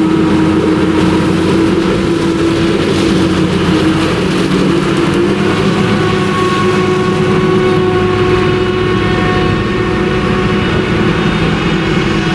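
Claas Jaguar 970 forage harvester chopping maize with an Orbis 750 header, alongside a Case IH tractor pulling the silage trailer; the engines run steadily under load. A steady higher-pitched whine joins the hum about five seconds in.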